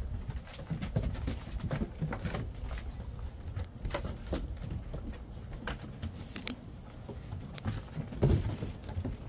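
Golden retriever puppies' paws scuffling and pattering on wooden deck boards as they play, with scattered short knocks and clicks; the loudest knock comes a little past eight seconds in.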